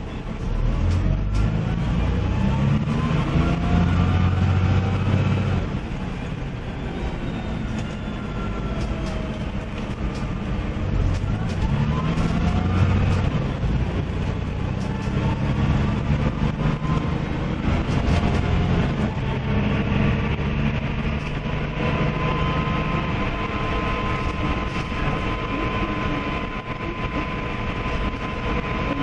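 Dennis Dragon double-decker bus's diesel engine heard from inside the passenger cabin, pulling away from a stop and picking up speed, its pitch rising several times as it climbs through the gears. In the later part a steady high whine joins the engine as the bus cruises.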